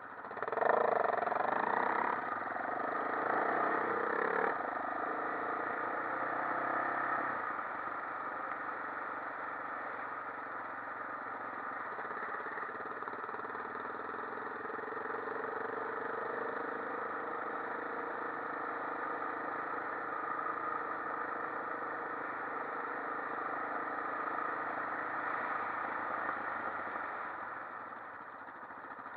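Quad bike engine pulling away hard about half a second in, its pitch climbing and dropping back a few times over the first seven seconds, then running steadily at cruising speed.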